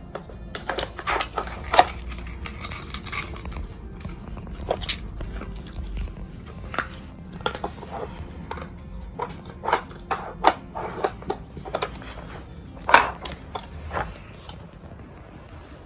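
Beagle pushing the sliding plastic blocks of a Nina Ottosson Dog Brick puzzle toy with its nose and paws: irregular plastic clicks and knocks, one sharper knock late on, mixed with the dog chewing the treats it uncovers.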